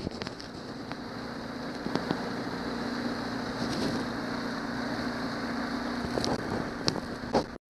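Johnson 90 hp V4 outboard motor running steadily as the boat cruises, a steady hum under the rush of wind over the microphone, with a few light knocks near the end.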